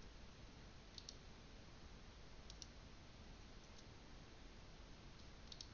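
Faint clicks of a computer mouse and keyboard, a few at a time, about a second in, around two and a half seconds and near the end, over low microphone hiss.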